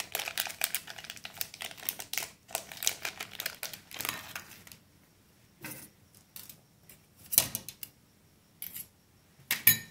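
Metal spoon scraping and tapping cream cheese off its foil wrapper against the rim of an aluminium mug: a quick run of light clicks, scrapes and foil crinkles for the first four or five seconds, then a few scattered clinks.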